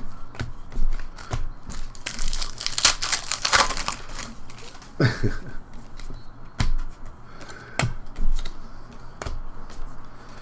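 Crinkling and tearing of a trading-card pack wrapper, with sharp little clicks of cards being handled; the crinkling is densest about two to four seconds in.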